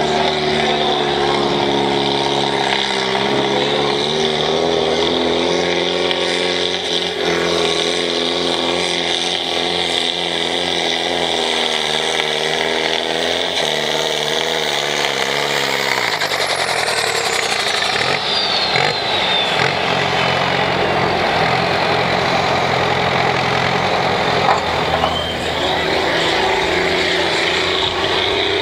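Farm tractor's diesel engine running hard under full load as it pulls a weight-transfer sled. About two-thirds of the way through, the engine note falls as the pull ends. Near the end another tractor's engine starts up.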